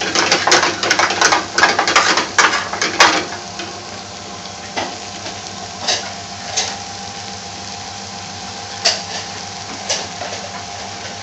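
Chopped potatoes sizzling in a pan over a low gas flame, the stir-fry nearly cooked. A utensil scrapes and clacks against the pan in quick strokes for the first three seconds or so, then the sizzling goes on steadily with a few single knocks.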